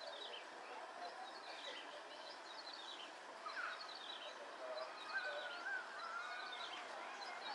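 Small birds chirping with many short, quick calls overlapping, and a few longer whistled notes about halfway through, over faint steady outdoor background noise.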